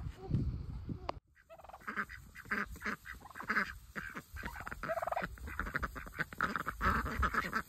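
A group of ducks quacking, with many short calls overlapping in quick succession. It follows a short low rumble that breaks off about a second in.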